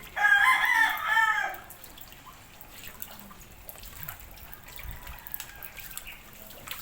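A rooster crowing once: one loud call about a second and a half long, right at the start, followed by faint scattered ticks.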